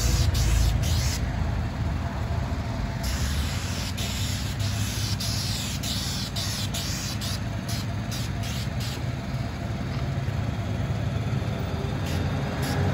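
Asphalt sealer hissing from a hose-fed spray wand, over the steady low running of the spray rig's engine-driven pump. The hiss thins out briefly about a second in and again around eight seconds.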